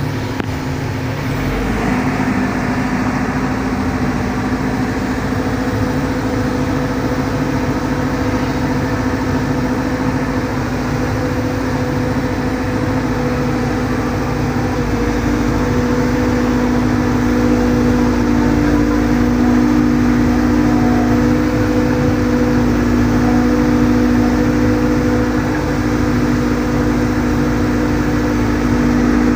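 Volvo EC210D hydraulic excavator running: a steady diesel drone with a whining hydraulic tone, growing a little louder about halfway through as the machine works.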